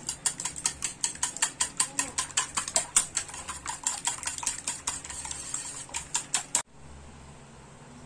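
Metal wire whisk beating raw eggs in a ceramic bowl, its wires clicking against the bowl in a quick, even rhythm of about six strokes a second. The clicking stops abruptly near the end.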